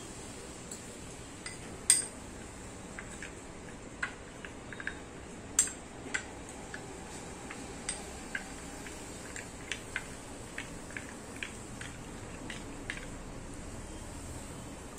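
Metal spoon clinking and scraping against a small bowl while stirring cornflour and chili powder into water: scattered light clicks, the strongest about two and five and a half seconds in.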